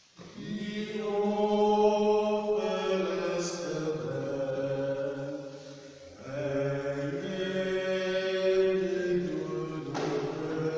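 Slow hymn singing in long held notes, in two phrases; the second begins about six seconds in.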